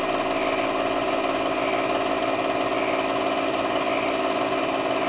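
8mm film projector running: a steady mechanical whir with a fine, even rattle from the film advance.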